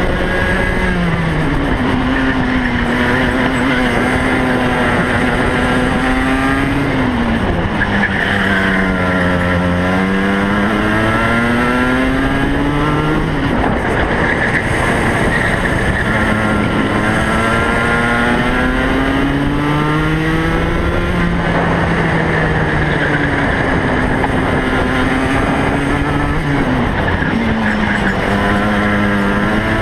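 DMax racing kart's engine heard from onboard at race pace. Its pitch climbs steadily on each straight and drops sharply when the driver lifts for a corner, about four times.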